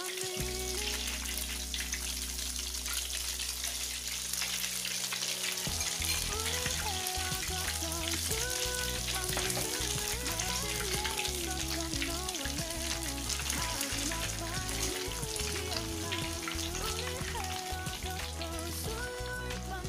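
Beaten egg sizzling as it fries in hot oil in a wok, a steady crackling hiss, with background music playing over it.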